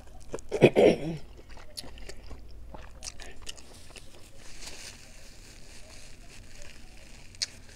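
Close-miked biting and chewing of boiled corn on the cob, with many small wet mouth clicks. The loudest moment is a short hummed voice sound about a second in, and in the second half a paper napkin rubs over the mouth.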